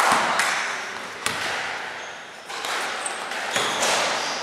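A basketball bouncing twice on a gym's hard floor, with short sneaker squeaks and the hall's echo.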